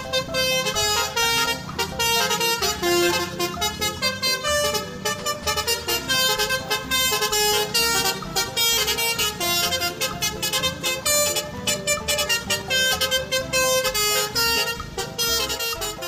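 A melody in horn-like tones over a steady beat.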